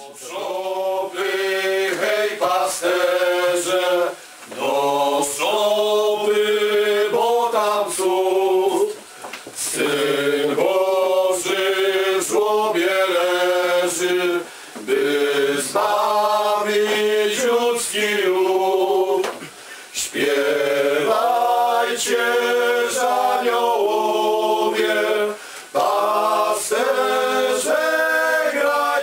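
A small group of carolers, men's voices leading, singing a Polish Christmas carol (kolęda) together in phrases of a few seconds, with short breaks between phrases.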